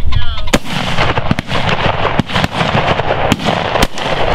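Shotguns firing at flushed pheasants: a string of sharp shots, some loud and close, others fainter from further off, with the three loudest about half a second in and twice in quick succession near the end.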